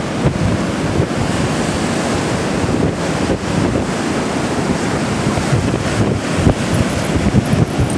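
Rough ocean surf washing and breaking, with wind buffeting the microphone in a low, fluttering rumble.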